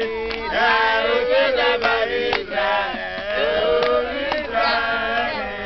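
A group of young people singing and chanting a praise song together, several voices overlapping.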